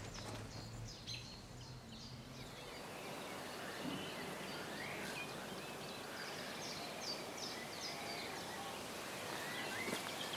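Outdoor ambience with birds chirping and singing. A run of short, high, repeated calls comes through the middle, over a steady background hiss.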